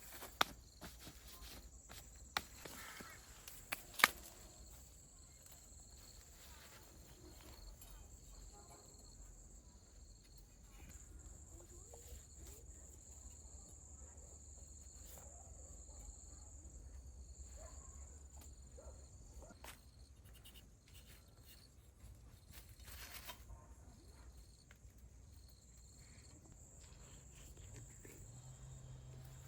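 Faint outdoor ambience with a steady high-pitched insect buzz, and a few sharp knocks in the first four seconds, the loudest about four seconds in.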